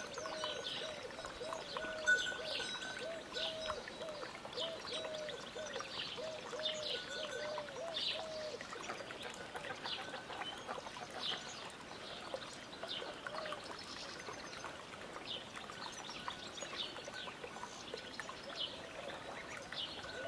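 Goslings peeping continuously, a stream of short high chirps. A lower call repeats a few times a second through the first half, fades out, and returns near the end.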